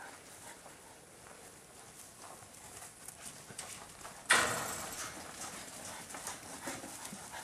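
Sheep hooves scuffling and clattering on dirt as the flock moves off. A sudden loud scuffle comes about four seconds in, followed by scattered hoof steps.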